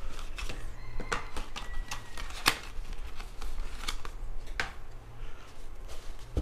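Handling noise from the phone's box and accessories: a scatter of sharp clicks and light taps as items are picked up and set down, the loudest about two and a half seconds in, over a low steady hum.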